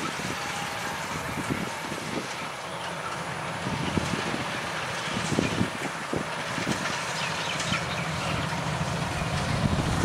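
Rice combine harvester running steadily as it cuts paddy, its engine and machinery making a continuous noise, with a few short knocks about halfway through.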